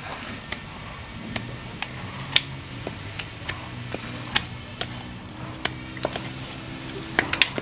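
Irregular sharp clicks and snaps from farrier's work on a horse's hoof, the strongest about two and a half seconds in and a quick cluster near the end, over a steady low hum.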